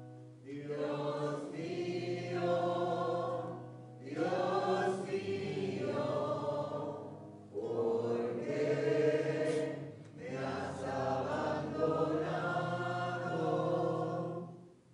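Small church choir of men's and women's voices singing slowly in four phrases, with a low held accompaniment note underneath.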